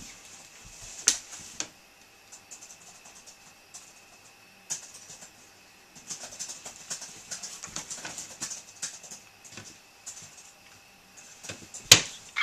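Dry-erase marker scratching on a whiteboard in short strokes as letters are written. Two sharp clicks, one about a second in and a louder one near the end.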